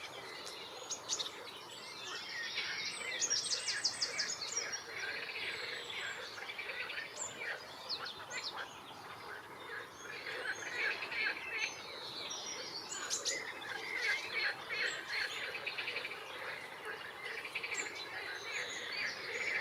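Several songbirds singing at once: a dense, continuous mix of short chirps and trills, with a fast high trill about three seconds in.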